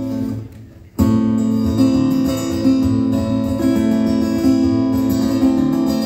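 Acoustic guitar playing a song's instrumental introduction with strummed chords in a steady rhythm. It drops away briefly just under a second in, then comes back loud and carries on.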